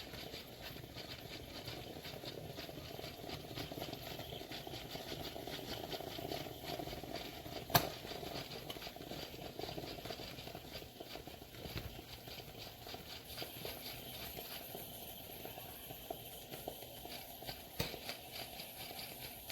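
SOWTECH 3.5-bar steam espresso machine brewing, a faint steady gurgling crackle with one sharp click about eight seconds in.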